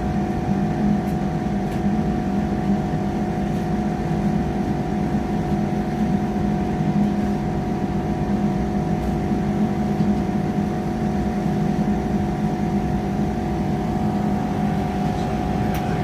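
A diesel train's steady engine hum, at an even pitch and level, with a few faint clicks.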